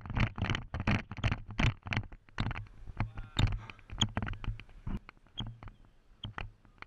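Footsteps on a dry cricket pitch, picked up through a body-worn camera as a run of quick thuds and knocks. They come about three or four a second at first, then thin out and fade in the second half.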